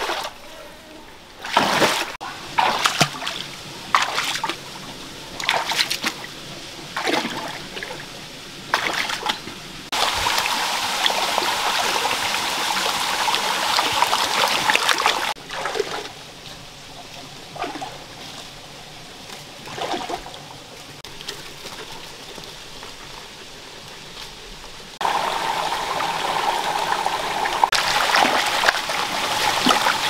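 Shallow stream water splashing as someone wades and gropes through it, a splash about every second, broken by stretches of steady trickling running water, with more splashing near the end.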